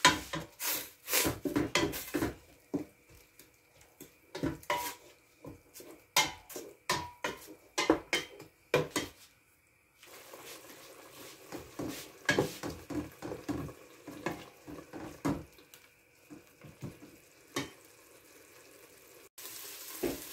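Wooden spoon knocking and scraping against a stainless steel pot while stirring grated tomato, onion and peppers, in quick irregular strokes. From about halfway a faint hiss of the vegetables starting to fry in oil sits under the spoon knocks.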